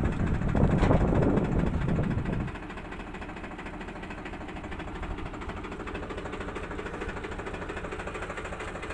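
Tractor engine running, loud for about the first two and a half seconds, then dropping to a steady idle with a fast even pulse.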